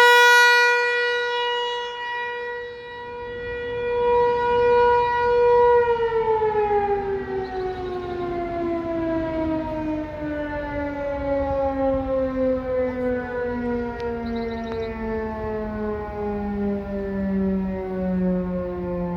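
American Signal ASC-T135 outdoor warning siren sounding a steady tone that swells and fades in loudness. About six seconds in it begins winding down, its pitch sliding steadily lower to the end, as the test ends.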